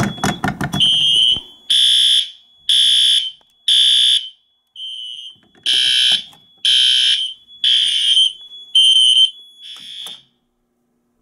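Fire alarm horns sounding in a temporal pattern: half-second blasts in groups of three with a pause between groups, over a thin steady high-pitched tone. The horns start after some clicking about a second in and cut off about ten seconds in, when the alarm is silenced or reset.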